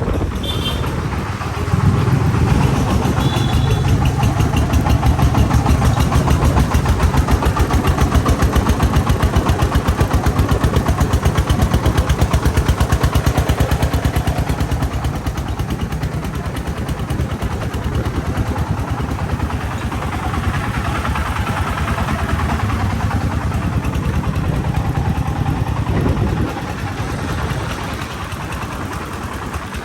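Diesel engine running with a fast, even beat, louder from about two seconds in, easing off after about fourteen seconds and dropping a little near the end.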